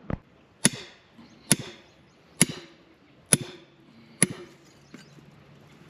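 A dull thump, then five sharp, ringing hammer strikes on brick at a steady rhythm of about one a second: bricks being knocked out.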